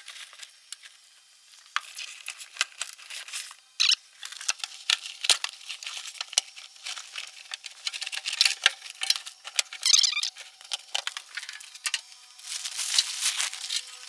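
Loose debris and broken glass being scraped up and gathered from a truck cab floor: a rapid jumble of sharp clicks, clinks and crinkling, coming in louder bursts.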